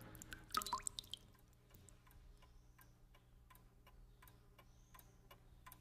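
Faint, regular ticking, about three ticks a second, over a low steady hum, with a few louder clicks in the first second.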